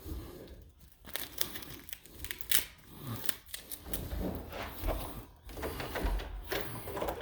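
Carpet and carpet pad being ripped up from a wood floor: irregular tearing and crinkling, with scattered sharp clicks and knocks.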